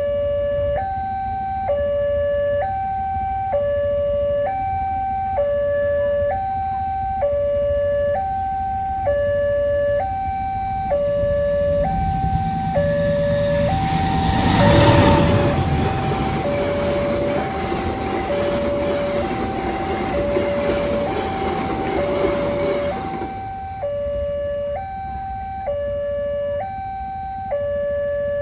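Railway level-crossing alarm: an electronic two-tone siren steadily alternating between a higher and a lower tone, each held just under a second. From about twelve seconds in, a loud rushing rumble swells, peaks, half covers the alarm, and cuts off sharply about twenty-three seconds in, as a train passes over the crossing.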